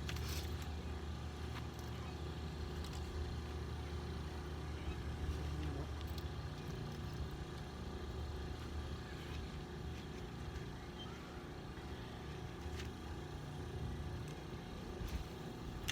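Steady low outdoor rumble with a few faint ticks scattered through it.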